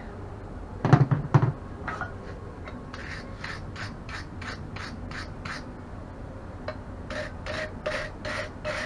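Hammer blows on hot steel at the anvil while forging a leaf keychain: two heavy blows about a second in, then runs of lighter, evenly paced taps at about three a second. The later taps carry a faint ring.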